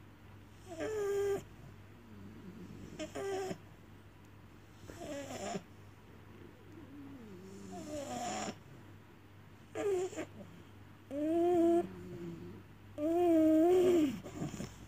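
French bulldog whining and grumbling in a string of about seven short moaning calls, a second or two apart, the last two longer and louder. It is the fussy whining of a drowsy dog being settled to sleep.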